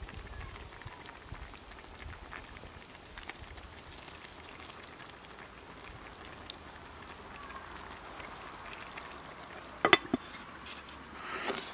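Lamb stew simmering in a clay güveç pot over charcoal while a metal spoon stirs it, with small clicks of the spoon against the pot. About ten seconds in, the clay lid is set back on the pot with two sharp clinks.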